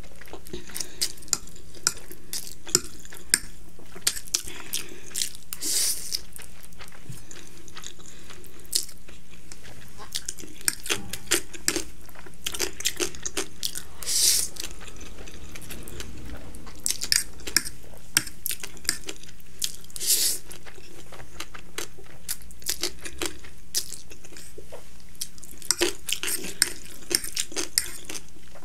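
Close-up eating of instant noodles: a metal fork clicking and scraping against the plate, chewing, and a few long noodle slurps at intervals.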